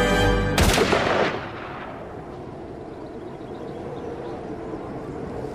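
A single gunshot about half a second in, cutting off the music, its echo dying away over about a second.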